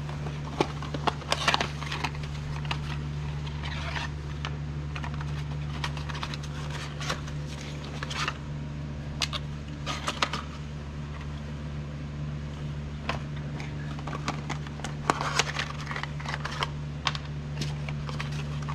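Scattered light clicks and clinks of hand tools and metal parts being handled during engine assembly, over a steady low hum.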